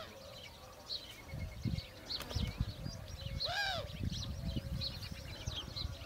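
Morning birdsong: many small birds chirping and twittering in quick short notes, with one louder, arched call rising and falling about halfway through. Irregular low rumbling sits underneath.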